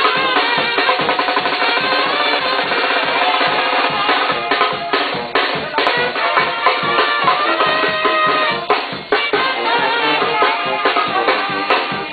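Live band music: timbales and cymbals struck with sticks in a steady, busy rhythm under a sustained saxophone melody.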